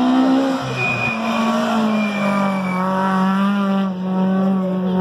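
Rally car engine held at high, nearly steady revs while the car slides through a turn, with a thin high tyre squeal for a couple of seconds.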